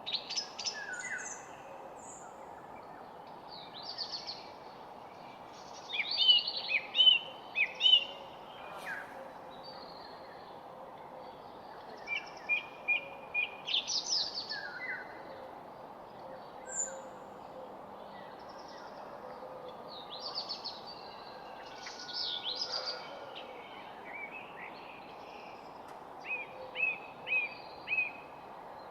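Garden birds chirping and trilling in scattered bursts, several voices at once, over a steady low background hiss of outdoor ambience.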